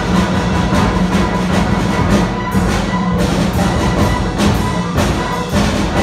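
A concert band playing loud sustained wind and brass chords, driven by a steady beat of drum and percussion strikes.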